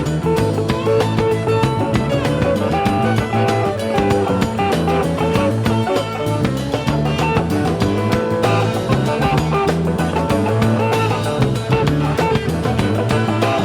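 Background rock music with electric guitar and a drum beat.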